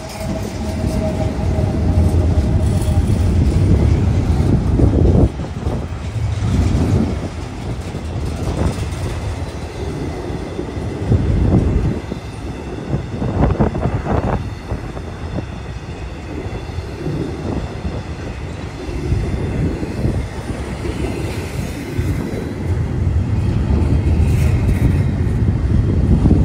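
A freight train passing close by. The last of its GE AC44C6M diesel locomotives rumble past loudest for the first five seconds. Then the intermodal cars, with trailers on spine cars and double-stack container well cars, roll by with a steady rumble and scattered clanks from the wheels and couplers.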